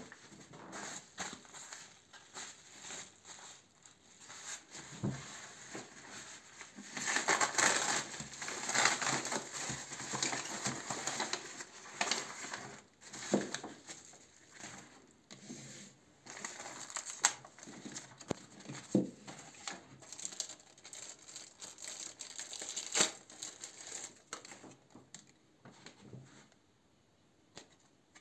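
Yellow padded mailer being opened and handled, its paper and plastic crinkling and rustling with sharp crackles, most intense from about seven to twelve seconds in, then scattered crinkles and clicks as the plastic-packed gripper is pulled out and handled.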